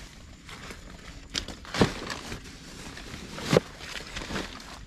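A person moving about just outside the tent, with rustling and two heavy thuds a little under two seconds apart, taken for footsteps on the ground close to the microphone.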